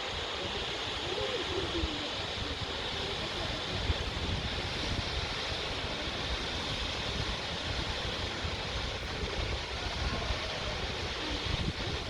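Steady rushing roar of falling water from a waterfall, with wind buffeting the microphone.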